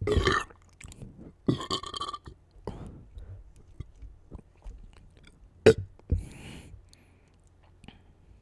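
A person burping deeply several times, each burp short and separate, with the loudest right at the start and a sharp one a little past halfway. Softer mouth and swallowing noises fall between the burps.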